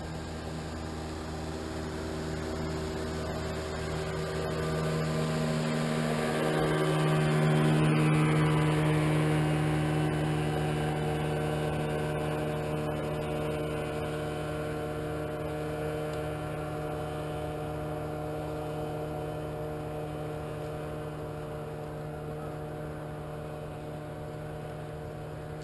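Motorboat engine running as the boat passes, a steady hum that grows louder for about eight seconds and then slowly fades away.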